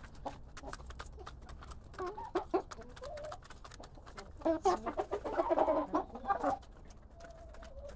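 A flock of chickens clucking while they peck at feed pellets, with many quick taps of beaks on the ground throughout. The clucking comes in two bursts, the louder one just past halfway, and a longer, quieter call near the end.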